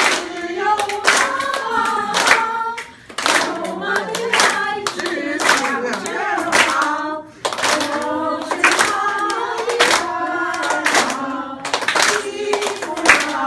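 A group of people singing a song together while clapping their hands in a steady beat, with short breaks between lines.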